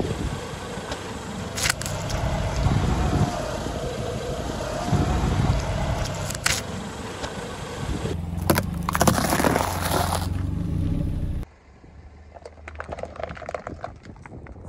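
Car engine running as the car creeps forward on asphalt, with a loud burst of crushing and squashing about two-thirds of the way in as the tyre runs over a tomato. After a sudden drop in level, quieter crackling of thin plastic cups being flattened under the tyre.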